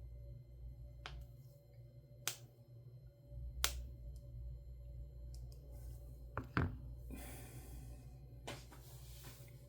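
Several sharp clicks and knocks, about six, spread irregularly over a steady low hum. Two short bursts of hiss come near the end.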